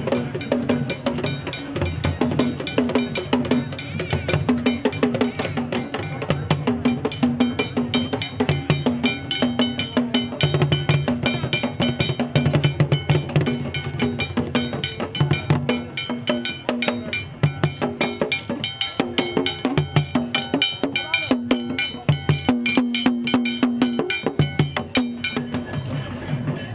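Traditional Asante drum ensemble playing with a struck iron bell (gong), a fast, continuous rhythm of sharp metallic strokes over deeper drum tones.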